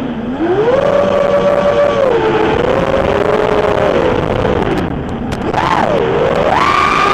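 Electric motors of a 210-size FPV racing quadcopter whining in flight, the pitch rising and falling with the throttle. The whine climbs about a second in and holds, sinks low around five seconds in, then climbs to its highest near the end.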